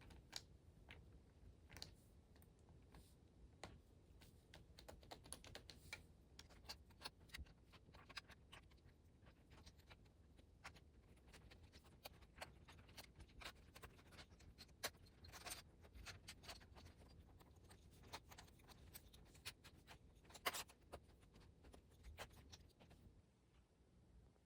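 Typing on a keyboard: a faint, uneven run of key clicks that stops shortly before the end.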